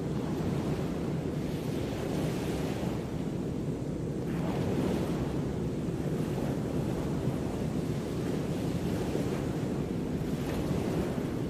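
Ocean surf: a steady low rushing of waves washing in, swelling and easing every few seconds.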